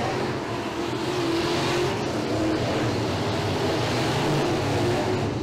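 Dirt-track modified race car engines running hard at speed, one car passing close by.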